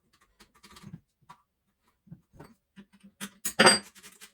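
Short metallic clicks and rattles from adjusting the chain-tension screw and handling the pole saw's chain and bar, with a louder grating scrape about three and a half seconds in.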